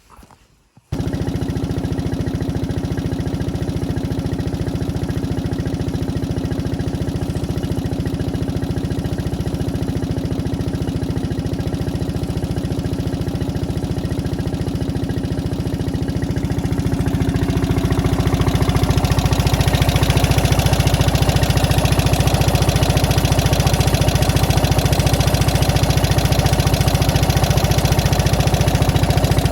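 Classic Fiat 500's air-cooled two-cylinder engine running steadily, with the sound cutting in suddenly about a second in. It grows louder and fuller from about seventeen seconds in.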